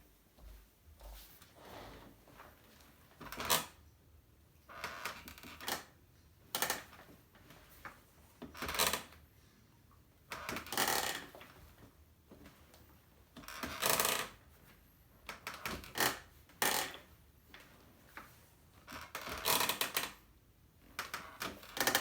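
EARL Hunter office chair creaking and crackling in a dozen or so short bursts a second or two apart, as its frame is loaded; a creak that developed after two months of use.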